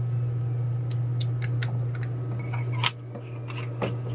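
Sharp clicks and taps of lithium batteries and the plastic battery chamber of a Zhiyun Crane 2 gimbal handle being handled and fitted, about eight in all, the loudest about three seconds in. A steady low hum runs underneath.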